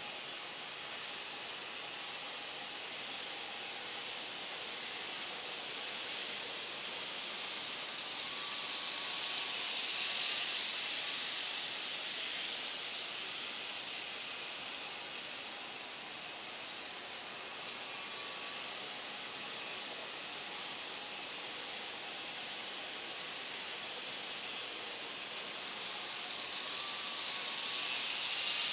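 Z gauge model trains running around a layout: a steady hiss of small motors and wheels on the track, with a faint wavering whine, growing louder twice as a train passes close, about a third of the way in and near the end.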